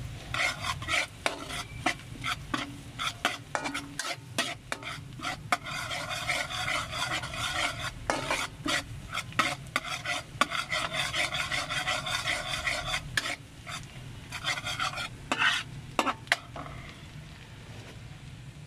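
Minced garlic sizzling in hot oil in a wok, with a metal ladle scraping and clacking against the pan as it is stirred. The stirring and sizzle die down near the end.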